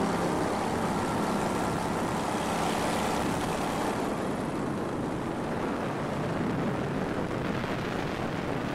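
Paramotor engine and propeller running steadily in flight, heard as an even rushing drone.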